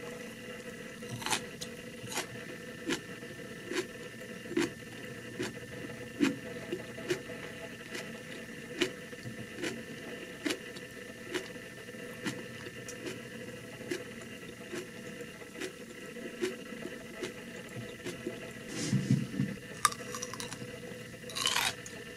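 Close-miked chewing of crisp Japanese pickles (tsukemono): a sharp crunch about every 0.8 seconds as they are bitten down, with a brief louder rustle and mouth noise near the end.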